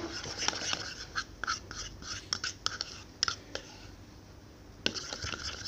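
A spoon stirring a sticky mix of PVA glue, shaving cream and borax solution in a small ceramic bowl: quick, irregular scrapes and taps of the spoon against the bowl, with a short lull about four seconds in.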